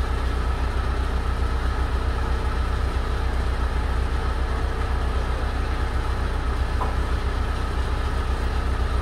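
Truck diesel engine idling steadily, a low even rumble.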